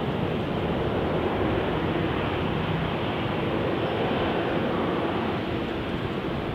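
Airbus A350-900's Rolls-Royce Trent XWB turbofans running at taxi power, a steady jet engine noise heard from a distance.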